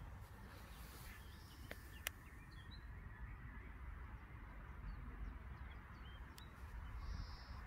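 Faint outdoor ambience: small birds chirping here and there over a low wind rumble on the microphone. A sharp click about two seconds in, with a couple of fainter clicks later.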